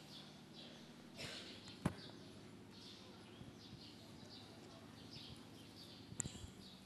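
Faint background of small birds chirping over a low steady hum, with a sharp click just under two seconds in and a couple more near the end.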